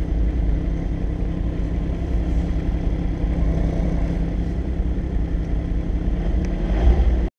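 Ski-Doo snowmobile engine running steadily under way, heard from the rider's seat. It cuts off suddenly near the end.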